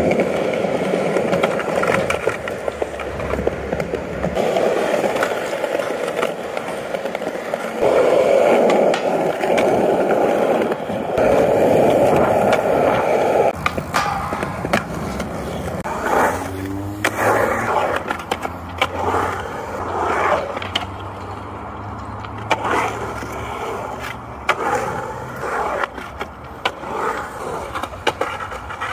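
Skateboard wheels rolling on smooth concrete with a steady rumble, loudest in the first half. Sharp clacks and scuffs from the tail popping, trucks hitting and the board landing are scattered throughout, and a board slides along a metal handrail.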